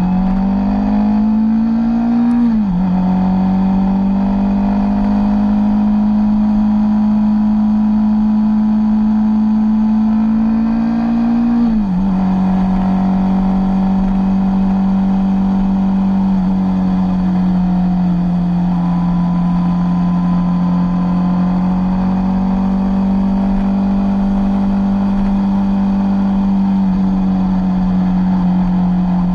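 Sport motorcycle engine pulling away through the gears. The engine note climbs and drops at an upshift about two seconds in. It climbs slowly again until a second upshift about twelve seconds in, then holds a steady cruising note.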